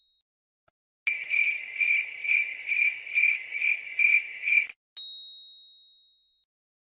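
Added comedy sound effects: a cricket-like chirping, about two chirps a second for roughly three and a half seconds, followed by a single bell ding that rings out.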